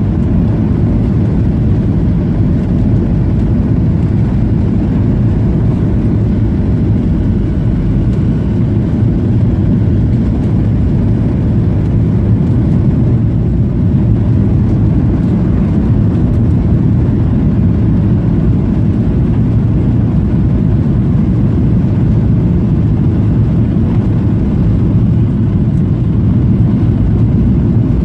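Steady low rumble of a Boeing 737's engines and rushing air, heard from inside the passenger cabin as the airliner comes in to land.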